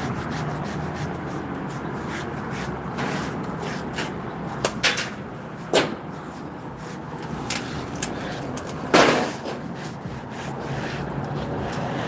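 Masonry tools scraping against stone and mortar in a string of short, sharp scrapes and knocks, the longest and loudest about nine seconds in, over a steady background rush.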